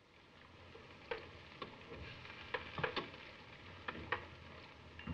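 Faint irregular clicks and light knocks of cardboard flour boxes being handled and set down on a table, over the steady hiss of an old film soundtrack.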